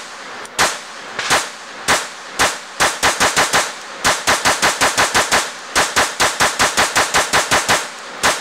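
Glock 22 pistol with a 9mm conversion barrel firing 9mm rounds semi-automatically: a few shots about half a second apart, then fast strings of about five shots a second with short pauses between strings.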